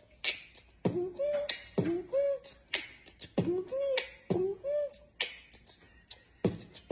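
Beatbox-style vocal percussion: a steady rhythm of sharp mouth clicks and pops, interleaved with short hummed notes that rise and fall, the same pattern repeating evenly.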